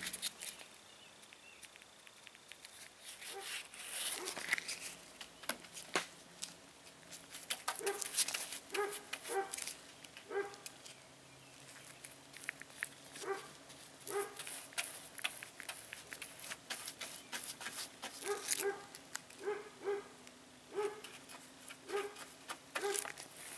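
Faint dog barking: repeated short barks from about seven seconds in, over soft wet clicks of a chip brush dabbing fiberglass resin into mat.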